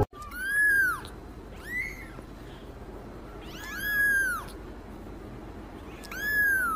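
A very young kitten mewing four times: short, high-pitched calls that each rise and then fall, the third one the longest.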